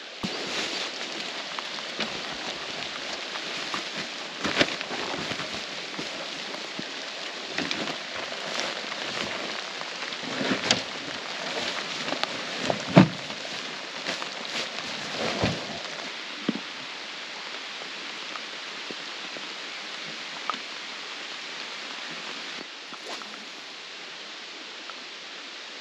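Steady rain falling, a continuous even hiss. Scattered sharp knocks and rustles of handling come through it during the first half or so, then it settles to rain alone.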